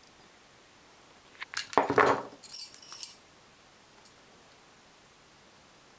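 Small metal hand tools (nail nippers, screwdriver) handled against a metal eyeshadow pan and tabletop: a few light clicks, a louder knock about two seconds in, then a brief high metallic jingle, and one more click later.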